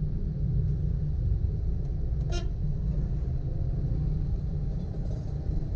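Steady low rumble of a car moving in slow, jammed traffic. A single short vehicle horn toot sounds about two seconds in.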